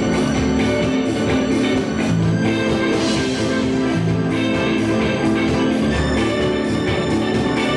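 Music with a steady beat, played by instruments.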